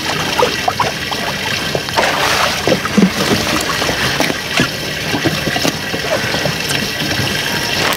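A hooked tripletail splashing and thrashing at the water's surface beside a boat as it is reeled in, with irregular splashes over a steady wash of wind and water noise.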